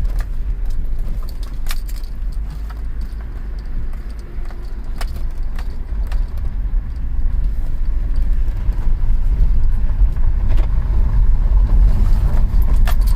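Cabin sound of a 2007 BMW X3 3.0si's straight-six engine and road noise while driving, building up about halfway through as the car accelerates, with no rattle: the Valvetronic fault no longer holds it back. A few light clicks and jingles.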